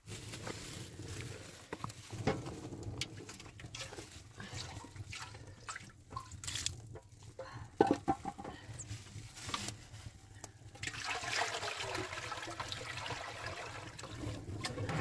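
Metal pans and a plastic jug being handled and set down, with scattered clinks and knocks, the sharpest about eight seconds in. From about eleven seconds in, water pours from the jug into a metal pan in a steady stream.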